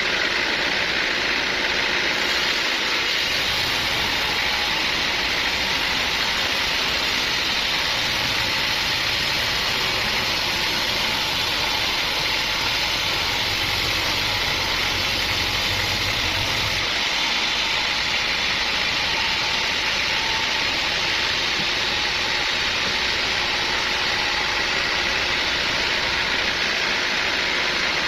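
Sawmill machinery running steadily, a loud, dense mechanical noise with a faint steady tone. A deeper hum runs under it through the first part and stops about 17 seconds in.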